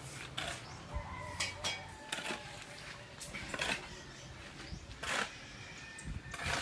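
Irregular knocks and scrapes of construction work, about seven in six seconds, over a low steady hum, with faint voices in the background.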